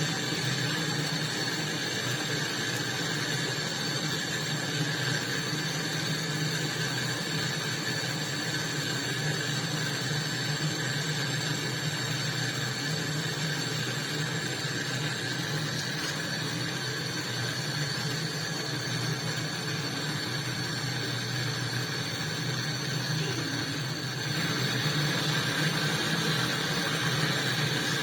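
A small machine running steadily with a low hum and a fixed higher whine over a hiss. It steps up slightly in level about 24 seconds in.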